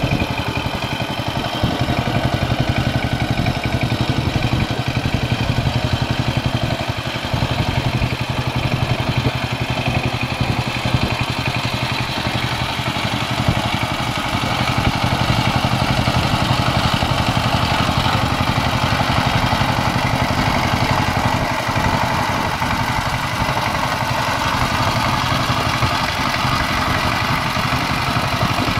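Kamco power tiller's 12 hp single-cylinder diesel engine running steadily while the tiller puddles wet paddy mud.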